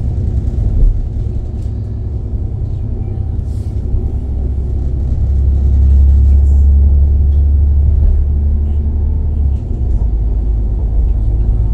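Diesel passenger train running along the line, heard from inside the carriage: a steady low rumble that swells louder for a few seconds in the middle, then eases back.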